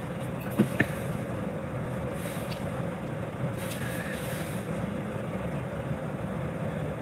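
Steady background hum and hiss with a faint steady tone, and a couple of faint clicks just under a second in.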